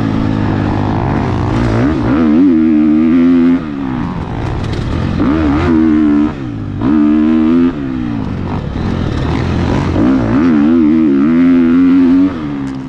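A 2022 KTM 250 XC-F dirt bike with an FMF titanium silencer, its single-cylinder four-stroke engine under load on a dirt trail. The revs rise and fall with the throttle, and the engine drops off the throttle briefly several times.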